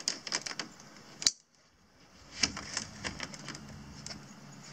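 Quick-release clips on a kayak canopy frame being handled and snapped shut, giving a run of small clicks with one sharp click about a second in. After a brief pause the clicking starts again.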